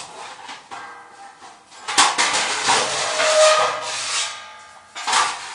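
Metal baking pans clattering and scraping as a tray is pulled out, in a noisy burst starting sharply about two seconds in and a shorter one near the end.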